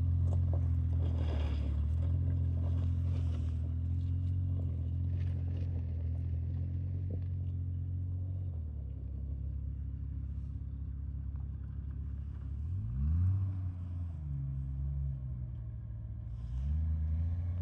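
A steady low engine rumble that shifts pitch a few times, with a short rising sweep about two-thirds of the way through.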